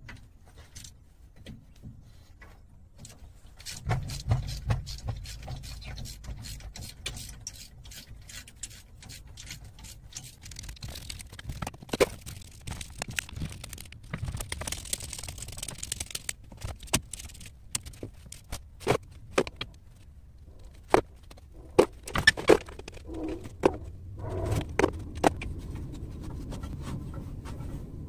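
Hand ratchet clicking and metal clinking and scraping as rear differential cover bolts are loosened, in irregular runs of sharp ticks. A steady low rumble comes in about four seconds in.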